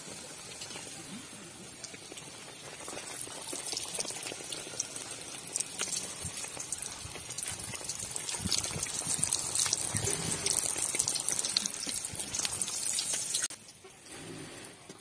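Kachori deep-frying in hot soybean oil in a wok: a steady sizzle full of fine crackles that grows louder toward the middle and drops away sharply near the end.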